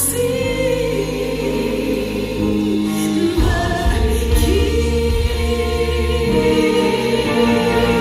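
A solo singer on a microphone and a large church choir singing together over steady low instrumental notes, amplified through the hall's sound system. The sung notes are held with a wavering vibrato.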